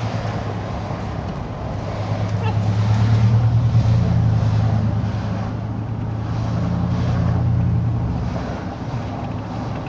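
Car driving slowly, heard from inside the cabin: a steady low engine and road hum with tyre noise that swells twice.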